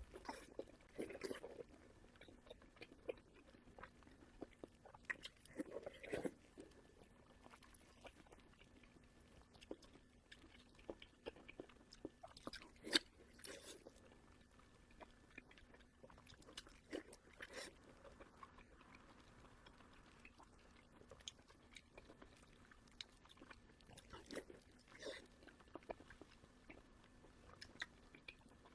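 Close-miked, faint chewing and biting of a big chunk of pork belly: scattered short wet smacks and clicks of the mouth, one louder about halfway through.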